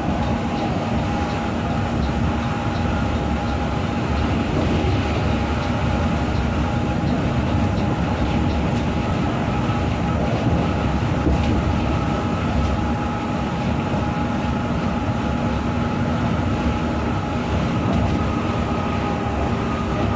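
Inside the cabin of a coach bus travelling at highway speed: a steady drone of engine and road noise, with a few constant hums running through it.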